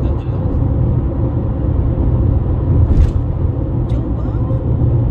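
Cabin noise inside a Honda CR-V cruising on a highway: a steady low rumble of tyres and engine, with two short clicks about three and four seconds in.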